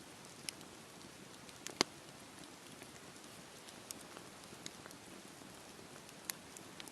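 Campfire burning with a soft steady hiss and scattered sharp crackles and pops from the burning wood, the loudest pop about two seconds in.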